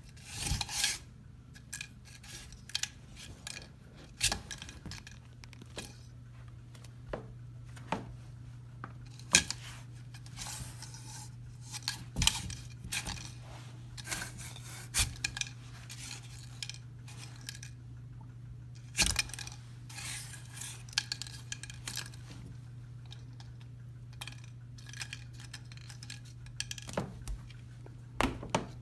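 Scattered light clicks, taps and scrapes of a thin plastic stick knocking and sliding on a tile floor and against a door while a cat bats at it from under the door, over a steady low hum.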